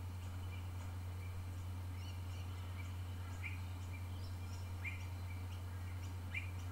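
Steady low hum under faint bird calls: short chirps, three clearer ones about a second and a half apart in the second half.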